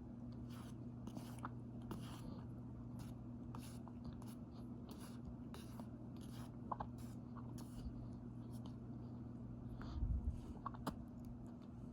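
Raw cornstarch being chewed: soft, squeaky crunches in an irregular run of short crackles over a steady low hum, with a louder low bump about ten seconds in.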